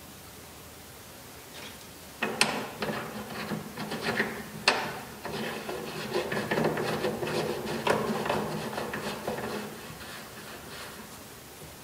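A flash hider being screwed by hand onto an AK's threaded muzzle: a run of metal-on-metal rubbing and scraping with sharp clicks, starting about two seconds in and fading near the end.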